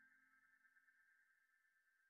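Near silence: the faint tail of background music, a held high note slowly fading away.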